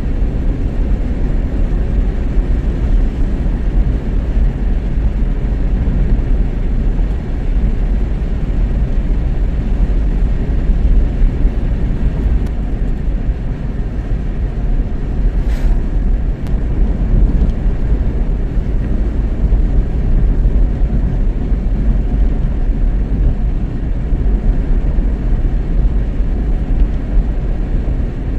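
Steady low rumble of a car driving at road speed: tyre, road and engine noise, with one faint click about halfway through.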